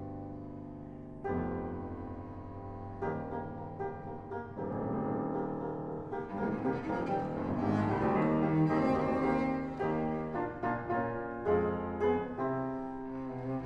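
Cello and piano playing a classical-style allegro together. Held notes open, then the music grows busier and louder in the middle, with a few sharp accents near the end.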